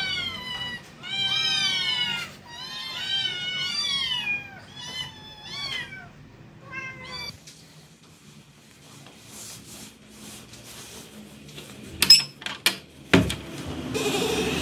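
A litter of month-old kittens meowing over one another, many short high calls that rise and fall, begging for food at dinner time; the meowing dies away after about seven seconds. Near the end come a few sharp knocks, then a louder rustling noise.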